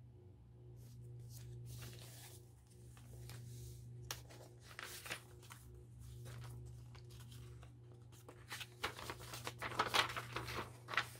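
Paper pages of a handmade junk journal rustling and crinkling as they are handled and turned, in scattered short bursts that grow busier near the end. A steady low hum runs underneath.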